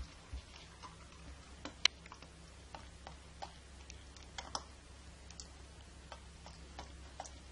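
Sussex Spaniel puppy eating dry kibble from a stainless steel bowl: irregular sharp clicks and crunches of the kibble, the loudest about two seconds in and a quick cluster midway. A faint low hum runs underneath.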